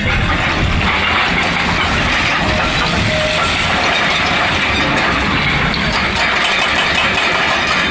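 Excavator working a hydraulic hammering or drilling attachment: its diesel engine running under load beneath a dense, steady, rapid mechanical clatter.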